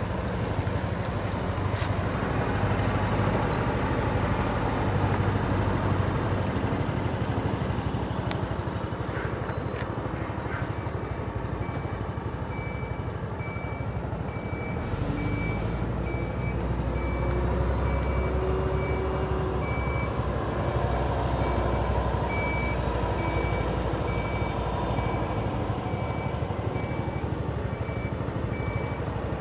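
Honda SES 125 Dylan scooter's single-cylinder four-stroke engine idling steadily. A faint high beep repeats at an even pace from partway through.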